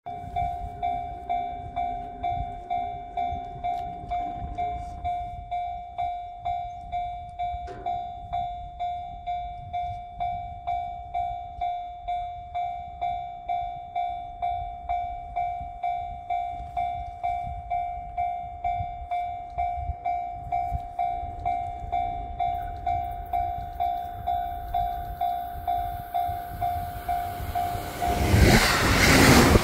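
Japanese level-crossing warning bell ringing steadily, about one and a half strikes a second. A hiss grows over the last few seconds as the train nears, and near the end a JR East E259 series Narita Express arrives with a loud rush of wheels and air that drowns the bell.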